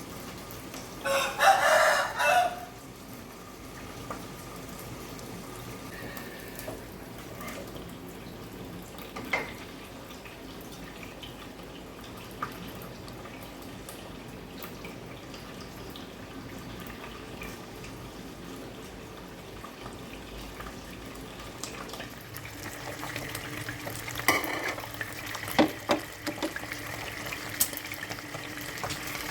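A rooster crows once, about a second in; this is the loudest sound. Later, from about 22 s, tap water runs, with a few sharp clinks and knocks.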